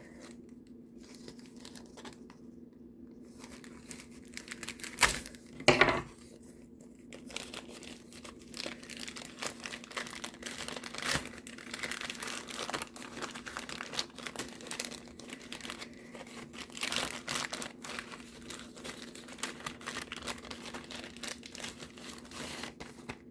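A shipping package being torn open by hand: two sharp rips about five and six seconds in, then a long stretch of irregular crinkling and rustling of the wrapping. A faint steady hum runs underneath.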